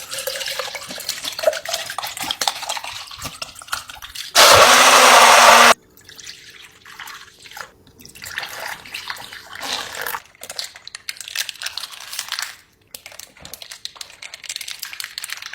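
Close-miked mukbang eating sounds: wet chewing, slurping and smacking in irregular crackly bursts. About four seconds in, a loud, even hiss lasts just over a second and stops abruptly.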